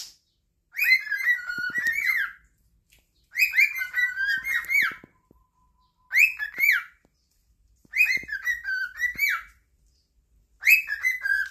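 Cockatiel whistling its learned song, the same phrase of quick rising and falling whistles repeated five times with short pauses between.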